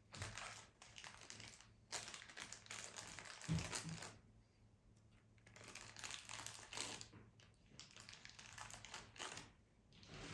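Rustling and crinkling from household items being handled, in several bursts with short pauses, and a soft knock about three and a half seconds in.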